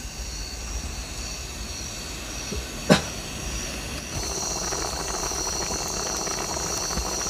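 Insects chirring steadily in high tones, louder from about four seconds in, over a low hiss from the cooking pot on the fire. There is a single sharp knock about three seconds in.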